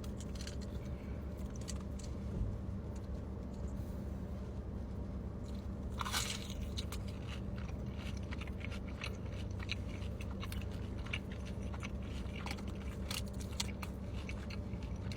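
Close-miked biting and chewing of crunchy fried food: a loud crisp bite about six seconds in, then a run of crunching chews.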